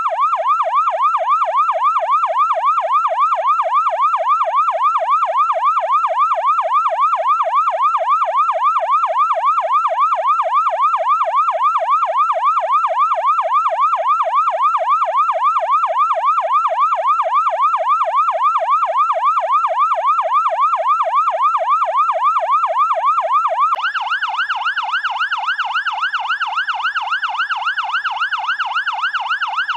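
Electronic siren sounding without a break in fast rising-and-falling sweeps, about four a second. About three-quarters of the way through it switches abruptly to a second, rougher and somewhat quieter siren.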